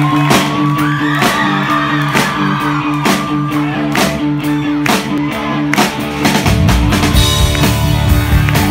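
Live rock band playing, with a held chord over a steady drum beat. The full band, bass included, comes in about six and a half seconds in.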